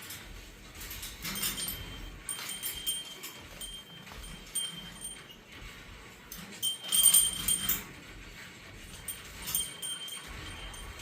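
A small metal bell rung irregularly by a cockatoo playing with it, in scattered strikes with a quick flurry of rings about seven seconds in, the loudest.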